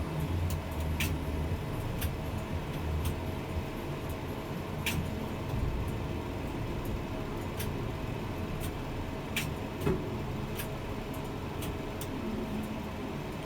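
Steady low machine hum heard inside a tower crane's cab, with scattered light clicks.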